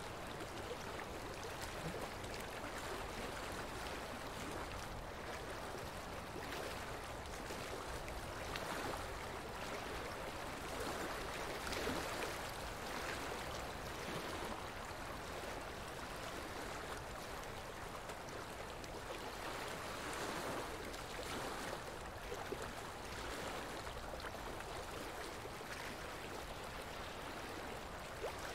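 Steady rushing of running water, like a stream, swelling slightly now and then.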